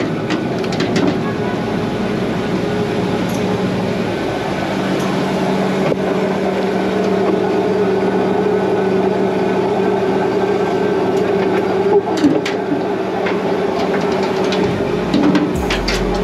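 Steady mechanical hum of a commercial prawn boat's engine and deck machinery, with scattered clicks and knocks from the gear while prawn traps are set and the line pays out over the block. Near the end a deep low thumping comes in.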